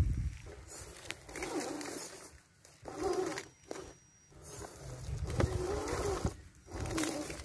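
RC scale crawler truck's electric motor and gearbox whining in bursts as it is throttled on and off, its pitch wavering as the truck climbs through tall grass.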